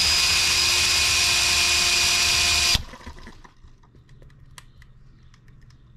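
A cordless drill with a starter attachment spins over a small M18 model engine with a steady high whine. It cuts off suddenly about three seconds in without the engine catching, as the engine is flooded. Faint clicks follow as the engine is handled.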